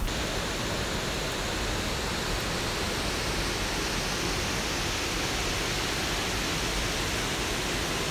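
Water pouring over a low river dam's spillway: a steady, even rush.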